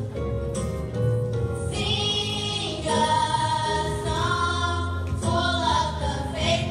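A small group of female voices, a woman and young girls, singing together into microphones, with long held notes that waver in pitch.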